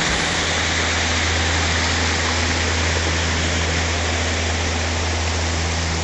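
Waterfall: water rushing steadily over rock ledges, with a steady low rumble beneath.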